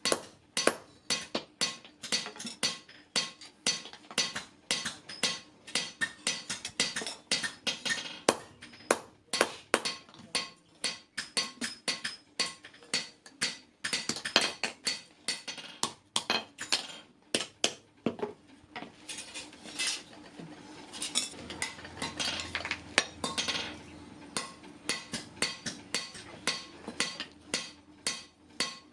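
Hand hammer striking steel on an anvil in steady blows, about two a second, each with a short metallic ring, as a spade blade is forged.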